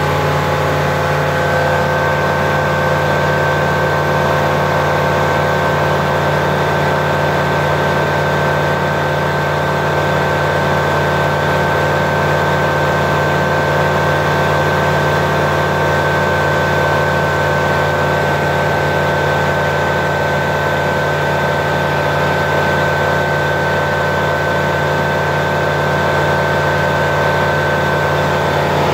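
Flight Design CTLS light aircraft's Rotax 912 flat-four engine and propeller running steadily in flight, heard inside the cockpit.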